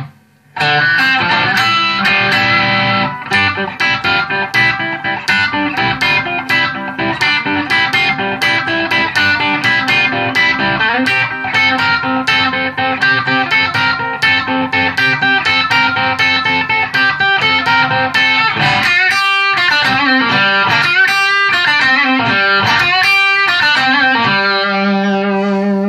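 Electric guitar, a Gibson Les Paul Special with P90 pickups, played through a Visual Sound Route 66 V3 overdrive/compressor pedal into a 1978 Fender Pro Reverb amp. It plays a lead line of quick picked notes, with string bends and vibrato in the last third, and ends on a long sustained note. A brief dropout comes right at the start.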